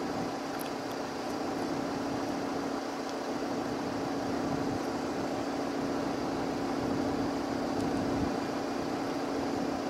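Twin turbofan engines of a Cessna Citation Latitude business jet on final approach, a steady jet hum that grows slightly louder as the aircraft nears.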